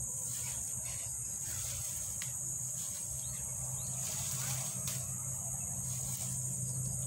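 Steady high-pitched chorus of insects from the surrounding vegetation, with a low steady hum underneath.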